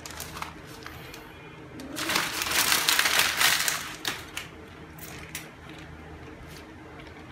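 Parcel packaging crinkling and rustling as it is handled, loudest for about two seconds in the middle, with scattered clicks and taps before and after.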